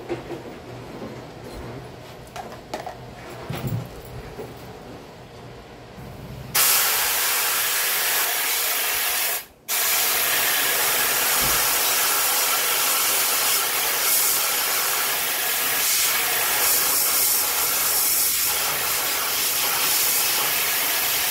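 Faint handling rattles, then about six seconds in a loud pressurised spray starts hissing steadily, with one brief break about three seconds after it starts.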